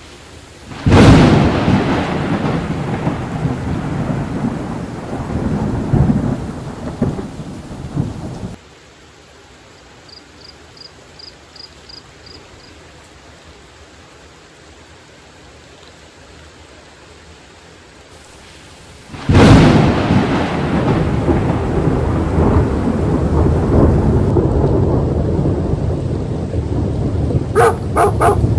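Thunderstorm: two close thunderclaps, each a sudden loud crack followed by several seconds of rolling rumble, the first cutting off abruptly, with steady rain hissing between them.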